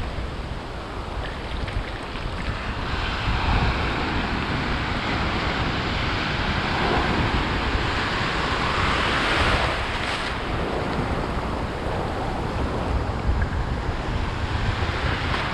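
Ocean surf washing around close by, with wind buffeting the microphone as a low rumble. A wave surges louder about seven seconds in and dies away near ten seconds.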